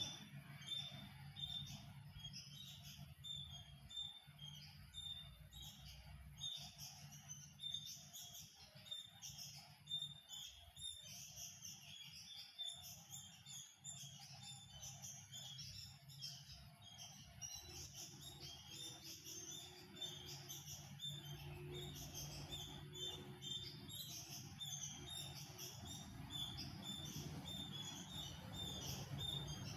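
Many small birds chirping, a dense twitter of short high calls overlapping without pause.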